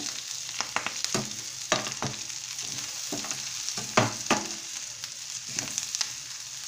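Chopped onions, green chillies and curry leaves sizzling in oil in a steel pan while a metal spoon stirs turmeric through them. The spoon scrapes and clinks against the pan in quick, uneven strokes, loudest about four seconds in.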